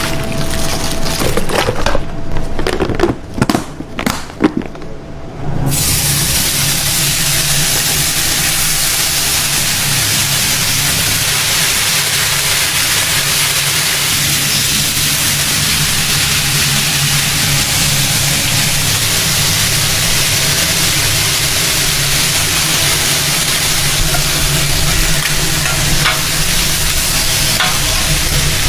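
Bacon strips sizzling steadily on a hot griddle as a spatula pushes them around. In the first few seconds there are only a handful of knocks and scrapes before the sizzle comes in.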